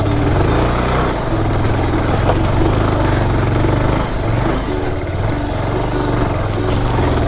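Motorcycle engine running steadily under load, climbing a rough uphill dirt road.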